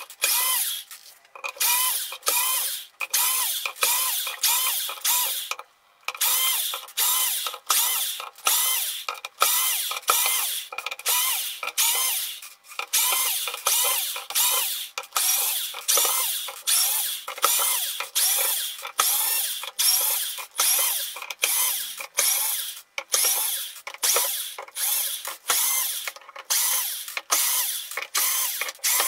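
Power drill-driver backing out the screws of a metal lid one after another: short bursts of motor whir, each rising in pitch as it spins up, about two a second, with a few brief pauses between runs.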